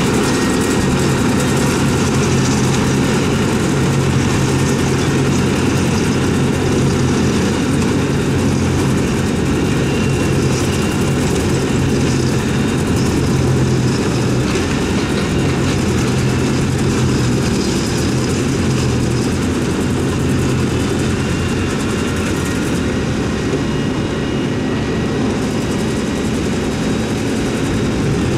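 Tractor engine working under load, driving a trailed forage harvester that chops grass and blows it into a silage trailer, with a second tractor running alongside. A loud, steady drone with thin high tones over it and no breaks.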